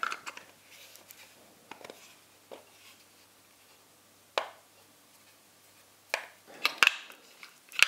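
Scattered sharp clicks and taps of a plastic multimeter case being handled while its back screws are driven in with a small screwdriver. The loudest tap comes about four seconds in, and a quick run of taps near the end.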